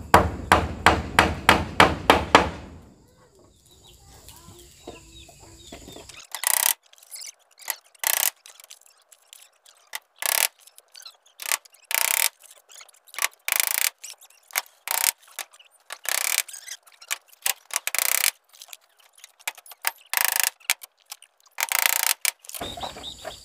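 Hammer blows driving nails into wooden wall boards, a quick run of about four strikes a second for the first two seconds or so. After a pause, scattered knocks and scrapes of work on the boards every second or two.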